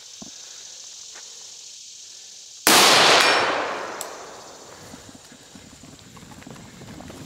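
A single rifle shot about two and a half seconds in, its echo dying away over the next two seconds. Footsteps of people running follow near the end.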